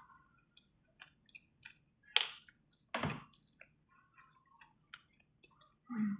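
A person eating rice and chicken: soft mouth clicks and chewing noises, with two louder sharp clicks about two and three seconds in.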